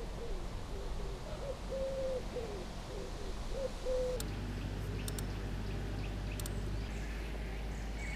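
A pigeon cooing: a repeated phrase of low notes, each phrase with a longer held note, for about the first four seconds. A few faint sharp clicks follow in the second half.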